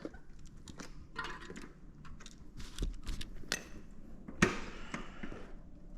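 Small metal bicycle parts clicking and clinking as they are handled and fitted, with a few sharper clicks and one louder knock past the middle.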